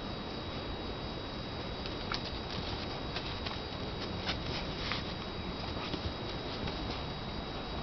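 Faint, irregular clicks and patters of a small terrier's claws on brick paving as it moves about. Under them runs a steady hiss with a faint high steady whine.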